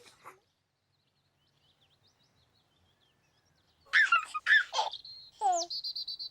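Nearly four seconds of silence, then a run of high, birdlike chirps and warbles, a whistle-like glide falling steeply in pitch, and a short high steady trill at the end.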